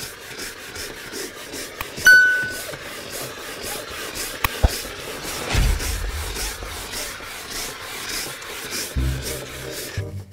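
Rhythmic scrubbing or rubbing strokes, about three a second, over background music. About two seconds in there is a short, bright ringing clink, and a sharp click comes near the middle.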